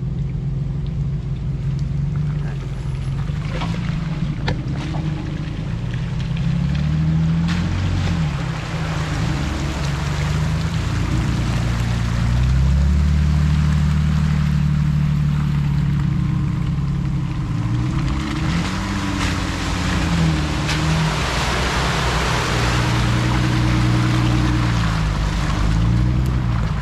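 Jeep engine running while driving an off-road trail, its pitch rising and falling as the throttle comes on and off. A rushing noise grows stronger in the second half.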